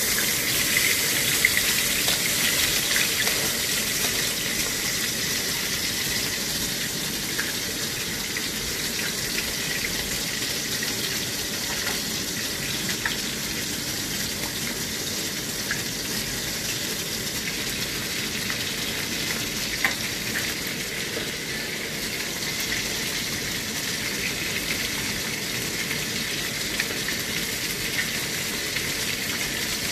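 Fish deep-frying in hot oil in an aluminium wok: a steady sizzle with scattered pops, loudest in the first few seconds and then easing slightly.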